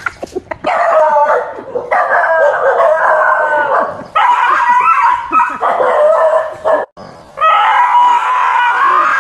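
Dogs howling and whining in long, high-pitched cries, a scared dog's reaction to a fake tiger. The cries break off suddenly about seven seconds in, then start again.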